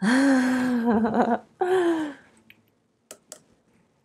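A woman's wordless vocal sound, held and then bending, followed by a second shorter one that falls in pitch. Two light clicks come about three seconds in.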